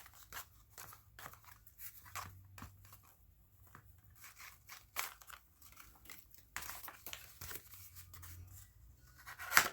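Paper packaging and small paper ephemera pieces being handled and unwrapped: a string of short rustles and crinkles, denser around seven seconds in, with one louder crackle near the end.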